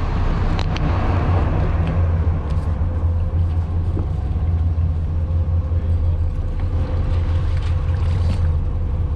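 Fishing charter boat's engine running with a steady low rumble, with a few light clicks over it.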